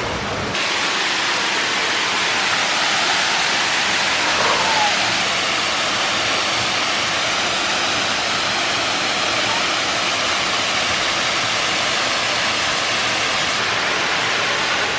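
Waterfall rushing: a steady, even roar of falling water that starts abruptly about half a second in.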